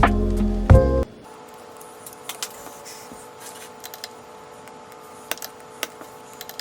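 Background music that cuts off about a second in, followed by a steady faint hum with scattered light clicks and taps, like small tools and parts being handled on a work surface.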